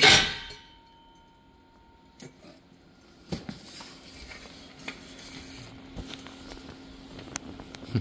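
Clinks and knocks from a removed catalytic converter being handled, its separated, broken ceramic core shifting inside the metal shell. A sharp clatter right at the start, then scattered light clicks.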